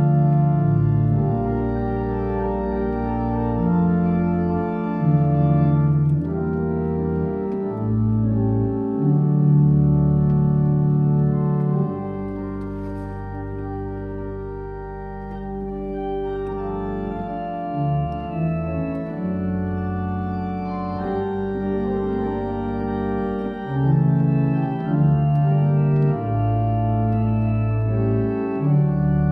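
Pipe organ playing slow sustained chords over deep held bass notes, softening for a few seconds in the middle.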